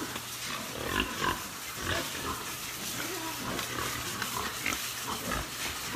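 Pigs in a pen making scattered short calls, several to a second, over a faint steady low hum.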